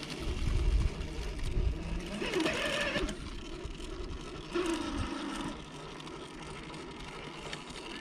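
Traxxas TRX-4 RC crawler's electric motor and geartrain whirring in several short bursts of throttle as it climbs a steep rock face; the whine rises and falls in pitch with each burst. The first half is the loudest.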